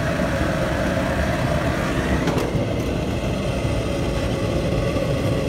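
Commercial gas wok burner burning at full flame, a steady rumble with no breaks.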